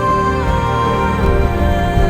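Background music: a slow, sustained melody stepping gently downward in pitch.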